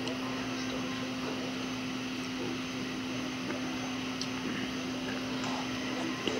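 A steady mechanical hum with one constant low tone, plus a few faint clicks.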